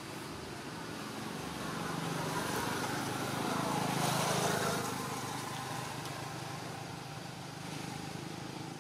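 Distant motor vehicle passing: a steady rumble that swells to a peak about four seconds in and then fades.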